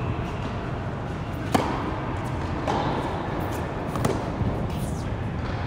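Tennis ball struck by rackets in an echoing indoor tennis hall. There is a sharp hit about a second and a half in, a softer pop near three seconds, and a topspin forehand hit about four seconds in.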